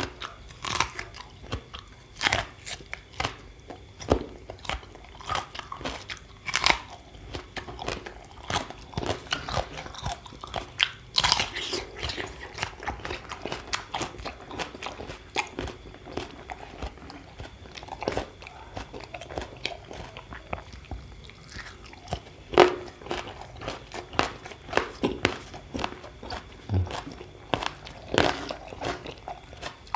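A person biting and chewing crunchy food close to the microphone, a raw-vegetable and cracker meal: irregular crisp crunches a second or so apart with wet chewing between them, one especially loud crunch about two-thirds of the way through.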